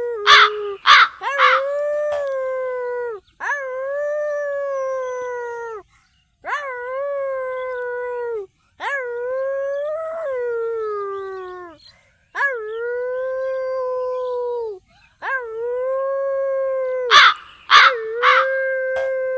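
Dog howling over and over in long drawn-out howls of two to three seconds each, holding a fairly level pitch with short gaps between them. A few short, sharp barks break in about half a second in and again near the end.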